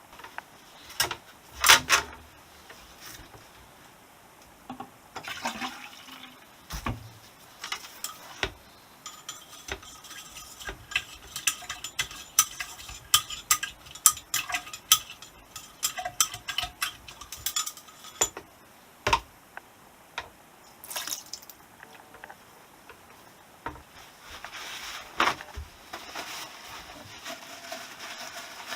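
Metal motorcycle fork parts and tools being handled: scattered clinks, ticks and knocks, a dense run of small ticks in the middle and a few louder knocks.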